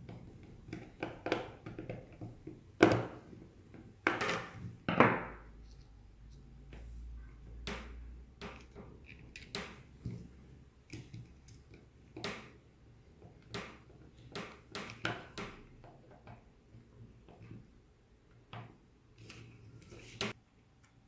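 Scattered clicks, taps and knocks of hands handling small plastic parts, wires and tools while a hair dryer's new motor and heating element are wired in and fitted, with a few louder knocks about three to five seconds in.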